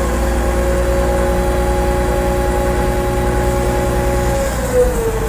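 Caterpillar D9T bulldozer running with a low rumble and a steady high whine, the whine dropping slightly in pitch and wavering about four and a half seconds in. The machine is still cold, its hydraulic fluid only just warming up.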